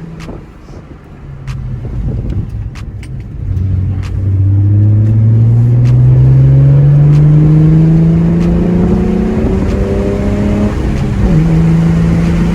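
Nissan 350Z's 3.5-litre V6 accelerating hard, its note climbing steadily in pitch for several seconds. It drops suddenly at an upshift about eleven seconds in, then pulls on in the next gear.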